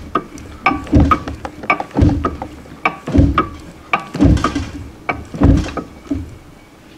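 Ring and pinion gears of an 8¾-inch differential clicking and clunking as the gear set is turned back and forth by hand to roll marking compound onto the teeth, with metallic ringing ticks several times a second and heavier thuds about once a second. The clicking stops about six seconds in.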